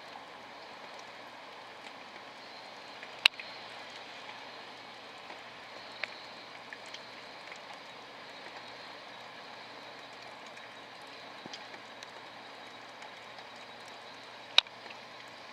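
Steady rain falling, an even hiss, broken by scattered sharp ticks. Two loud ticks stand out, one about three seconds in and one near the end.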